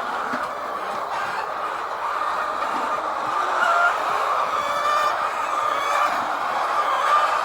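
A large flock of white laying hens clucking and calling all at once, a steady dense din with individual calls rising out of it now and then.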